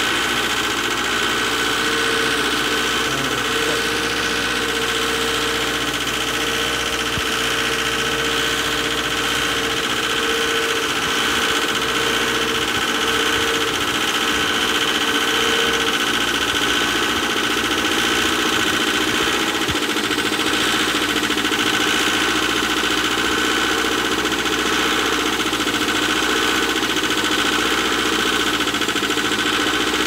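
Perkins diesel engine of a Wacker Neuson ST45 skid steer in runaway: it runs on out of control, at a steady pace with a steady whine, and will not shut off with the key.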